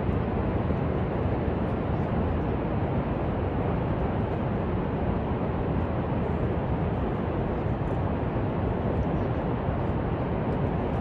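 Steady, deep rushing noise of the Horseshoe Falls at Niagara, with no let-up.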